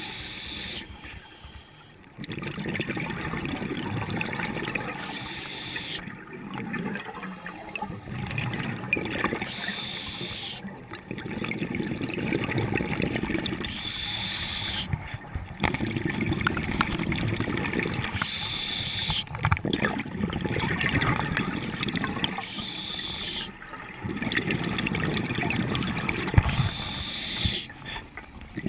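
Scuba diver breathing through a regulator, heard muffled through an underwater camera housing: a short hiss on each inhale, then a few seconds of rumbling, gurgling exhaust bubbles, repeating about every four to five seconds.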